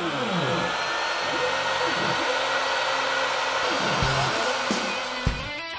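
CNC machine's router spindle running at speed with a steady whirring whine, while the axis motors whine in rising and falling glides as the head moves.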